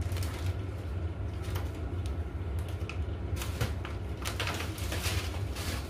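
A plastic scoop scraping and tapping in a jar of powdered orange drink mix: a run of light clicks and scrapes, busiest in the second half, over a steady low hum.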